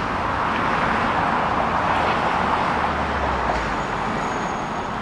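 Steady traffic and road noise, an even rushing with no breaks, with a faint low hum rising briefly in the middle.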